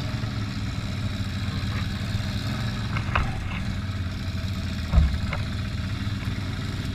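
Can-Am ATV engine running steadily at low trail speed, with a few light knocks and one louder thump about five seconds in.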